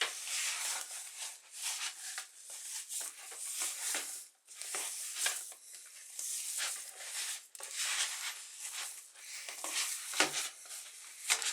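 Boilie dough bound with eggs being kneaded by hand in a bowl: an irregular run of sticky rubbing and squishing strokes.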